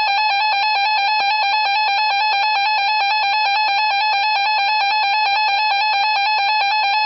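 NOAA Weather Radio warning alert tone played through a phone's weather radio app: a loud, steady alarm tone held without a break, signalling that a warning broadcast is about to follow.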